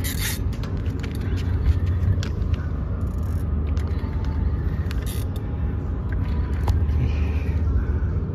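Steady low rumble with a faint even drone, overlaid by scattered light clicks and ticks.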